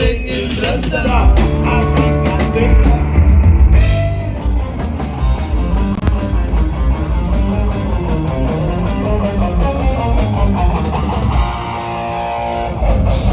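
Rock band playing live, guitar over a drum kit, in a loud passage without vocals. Near the end it drops back to quieter held chords, then the full band comes back in.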